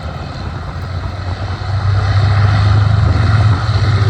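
Rolls-Royce Merlin V12 engines of a group of Hawker Hurricanes running together, getting clearly louder about two seconds in as they open up for the formation takeoff.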